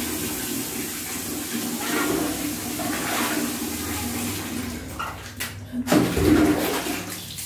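Running water, a steady rush, briefly louder and deeper about six seconds in.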